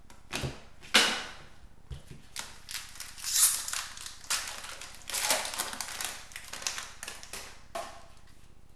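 Trading card pack wrapper crinkling and cards being flicked through and slid against each other by hand: a run of short, uneven rustles and taps, loudest about a second in and again around three and a half seconds in.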